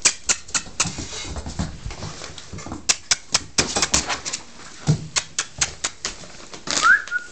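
Teething puppy chewing and nipping, with many sharp, irregular clicks several times a second. A short rising squeak comes near the end.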